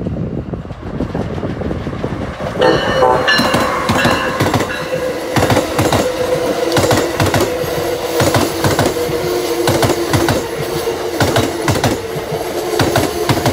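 Amtrak Northeast Regional train, an ACS-64 electric locomotive hauling Amfleet coaches, passing close at speed. It gets suddenly louder about two and a half seconds in as the locomotive goes by, then the coaches' wheels click rhythmically over rail joints and switches under a steady hum.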